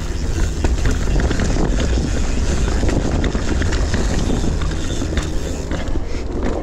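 Mountain bike rolling over rough, rocky and rooty trail: a steady low rumble on the microphone with frequent clicks, knocks and rattles from tyres and bike.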